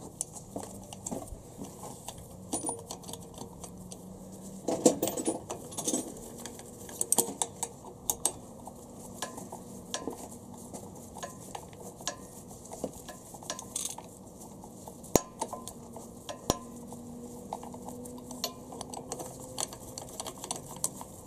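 Irregular light metallic clicks and clinks as small 10 mm bolts and a metal thermostat cover are handled and threaded in by hand on an engine.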